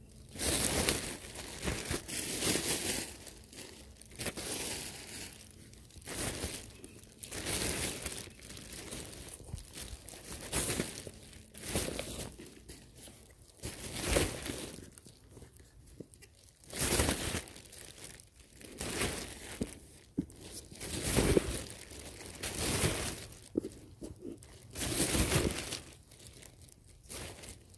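Thin plastic rubbish bag crinkling and rustling in irregular bursts as old clothes are pushed and stuffed into it by hand.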